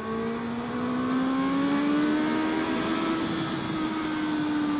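Motorcycle engine pulling under throttle at freeway speed, its note rising over the first three seconds or so, then levelling off and dropping slightly, over a steady rush of wind and road noise.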